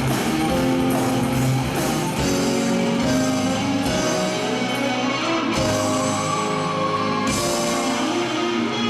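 Live band music, an instrumental passage of held notes and chords.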